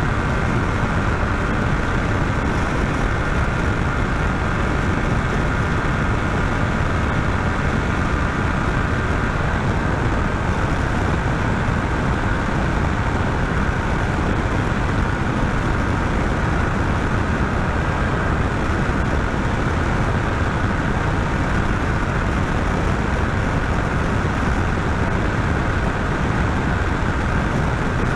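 Wind noise and the Yamaha Tracer 700's parallel-twin engine held at full throttle at top speed, about 190 km/h in sixth gear: a loud, steady rush with a faint, steady engine tone underneath.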